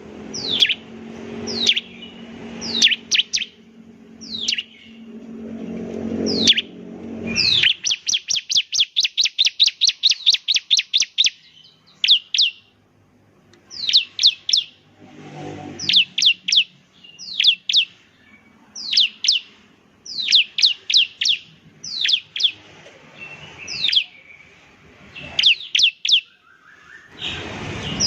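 Ciblek (a prinia) singing: sharp, high, down-slurred chirps in quick clusters of two to four, with a fast, even trill lasting about three seconds near the start of the second third.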